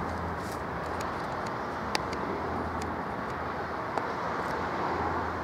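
LEGO Technic RC car driving on rough asphalt: a steady whirr of its electric motors and gears mixed with tyre noise, with sharp clicks about two and four seconds in.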